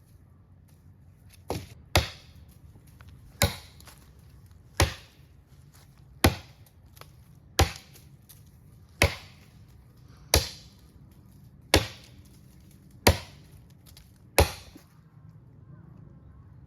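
Wood being chopped with steady, evenly paced strokes: about ten sharp blows, roughly one every second and a half, each dying away quickly.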